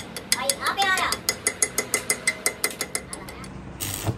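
Quick, even metallic tapping, about six taps a second, each with a short ring, then a brief burst of crackling hiss near the end as an arc welder strikes up on a steel brake caliper pin.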